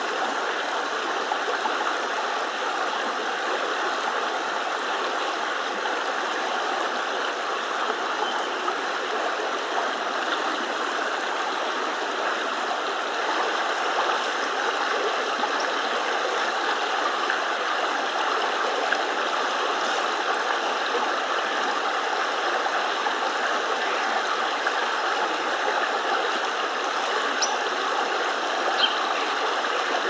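Steady rushing of a flowing creek, even and unbroken.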